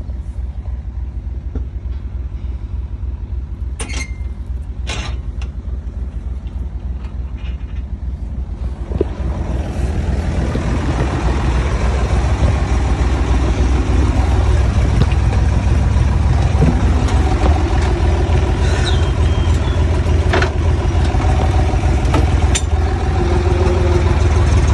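Diesel engine of a farm machine running steadily, heard from inside its cab, growing louder and fuller about ten seconds in as it works harder. A few sharp knocks of the cab and machine stand out, two of them about four and five seconds in.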